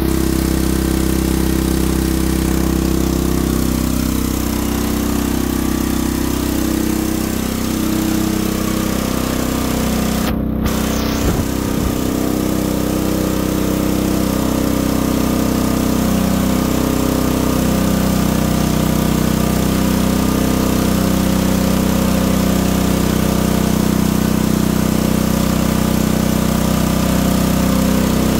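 Portable generator's engine, fitted with a 'Thunderstorm generator' device, running steadily under load from a fan heater.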